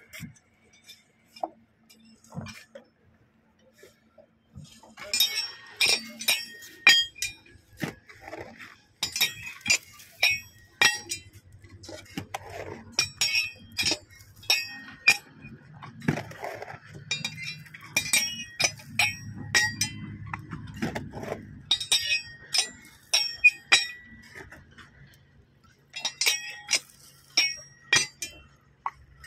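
Metal clinking in repeated short bursts, sharp ringing strikes, from a brick-kiln fireman's iron coal scoop and the iron lid of a coal-feeding hole being handled at the hole. A faint low steady hum runs underneath in the later part.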